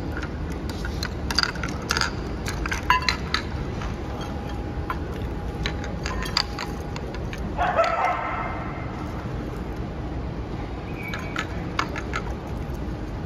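Scattered metallic clinks and jingles from a steel dog food bowl and the dogs' collar hardware as two dogs eat and nose around it, busiest in the first few seconds and again near the end. A brief pitched sound comes about eight seconds in.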